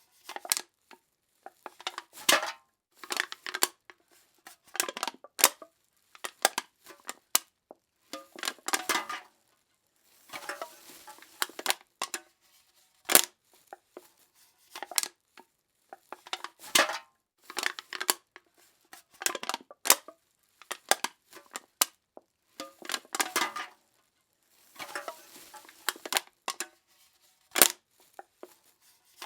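Aluminium drink cans being crushed, over and over: a series of crunches, each a short cluster of crackling and metallic snaps lasting up to about two seconds, with single sharp pops and brief silences between them.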